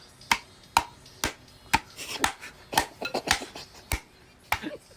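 Repeated sharp taps, about two a second, knocking young-coconut meat loose so it drops into the bowl.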